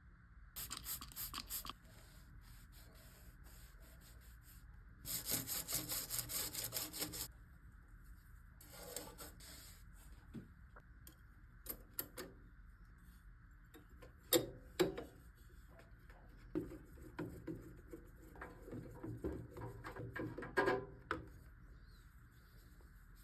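Hand work on a thickness planer during a blade change: runs of quick rubbing, scraping strokes, the longest lasting about two seconds, and a few sharp knocks of metal parts, over a faint steady hum.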